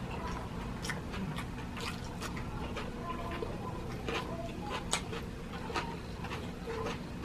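Close-up eating sounds: chewing with irregular sharp clicks and smacks, a couple louder ones about four and five seconds in, over a steady low hum.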